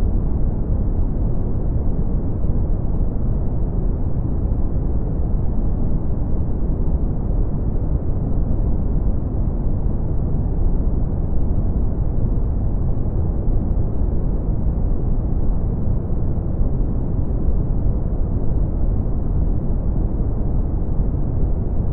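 Steady synthetic brown noise: a deep, even rumbling hiss, heaviest in the bass and thinning out toward the treble, with no highs at all. It does not change.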